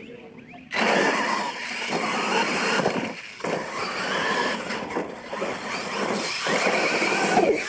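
Electric brushless motors of Losi LMT radio-controlled monster trucks whining as they launch hard off the start, with the tyres tearing at dirt. The sound comes in suddenly about a second in and stays loud, with a few short dips.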